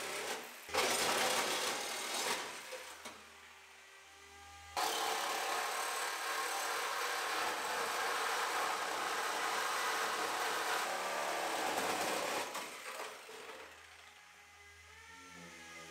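Corded reciprocating saw cutting through a car's metal radiator support: a short cut about a second in, then a longer steady cut from about five seconds in, stopping about three seconds before the end.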